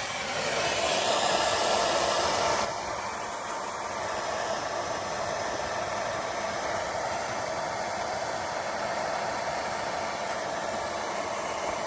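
Jeweller's soldering torch flame hissing steadily while it heats a ring's join until the solder flows. It is a little louder for the first couple of seconds, then holds steady until the torch is taken away right at the end.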